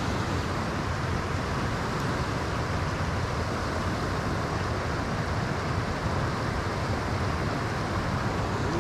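Steady outdoor rushing noise, even and unbroken, strongest in the low range, with no distinct knocks or calls standing out.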